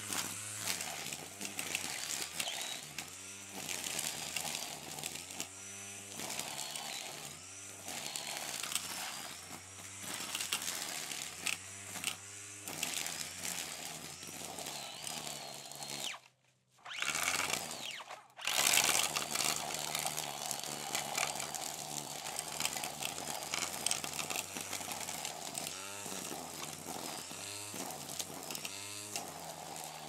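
Brush cutter (lawn trimmer) running, its buzzing sound swelling and changing every few seconds. About halfway through it cuts out for a couple of seconds, with one short burst, then starts up again.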